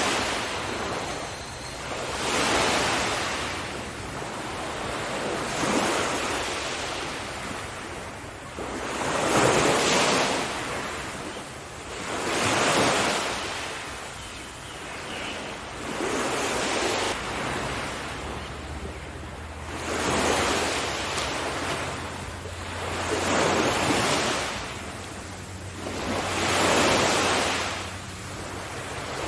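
Sea waves breaking on a shore, each surge of surf swelling and fading away, roughly every three seconds.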